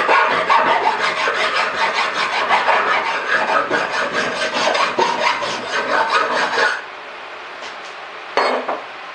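Hand file rasping back and forth over a metal bar in rapid, even strokes, taking the burrs off freshly drilled holes. The filing stops about two-thirds of the way through.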